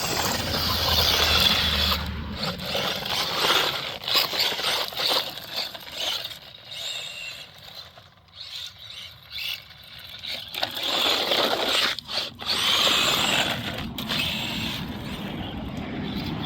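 Electric radio-controlled off-road car driving on a dirt track: motor whine and tyres scrabbling over loose dirt, surging and fading as it speeds up and slows through the corners.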